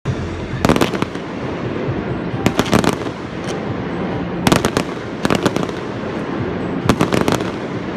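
Aerial fireworks bursting: five clusters of rapid crackling bangs, one every second or two, over a steady background noise.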